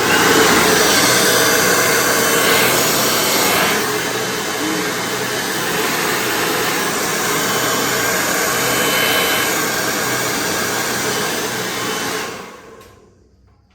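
Handheld hair dryer running steadily, switched on right at the start and winding down about twelve seconds in.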